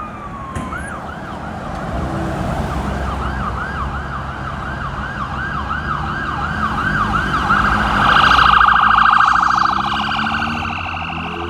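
Ambulance siren approaching and passing: a yelp cycling about three times a second, switching about eight seconds in to a fast warble that is loudest as the ambulance goes by, then easing off. Low road traffic rumble underneath.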